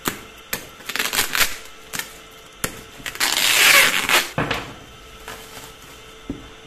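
Plastic bubble-wrap packaging being cut open with a kitchen knife and pulled apart: crinkling and crackling plastic. About three seconds in comes a longer, louder rustle as the wrap is pulled off the cardboard box, and a single light knock near the end.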